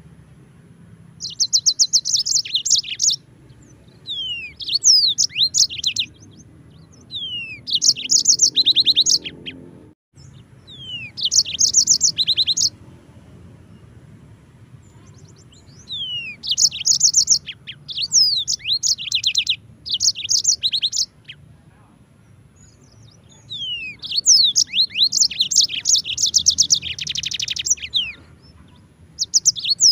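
Yellow-fronted canary (Mozambique canary) singing in repeated bursts of rapid high trills and sweeping whistled notes, each burst one to three seconds long with short pauses between.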